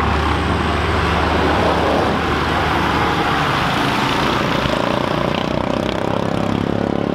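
Massey Ferguson 6270 tractor's diesel engine running loudly as the tractor drives past close by, its note rising near the end.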